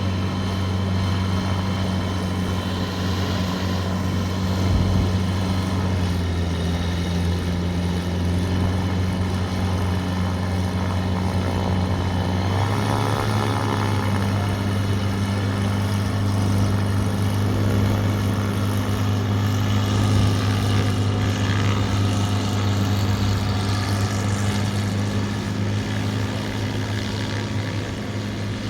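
Light STOL aircraft's propeller engine running steadily. Its pitch steps up slightly a little under halfway through.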